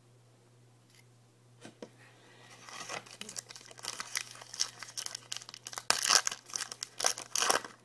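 Trading card pack wrapper being torn open and crinkled by hand, a rapid crackling that starts about two and a half seconds in and runs until just before the end.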